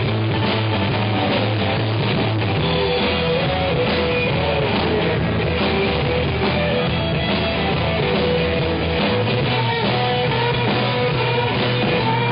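Live rock band playing an instrumental passage: guitars, bass guitar and drum kit, with a lead line of long held notes over a steady bass line.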